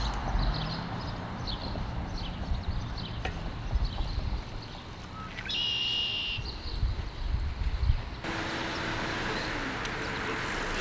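Outdoor roadside ambience: a low, uneven rumble with a steady background hiss and short high chirps like birdsong. The background changes abruptly about eight seconds in.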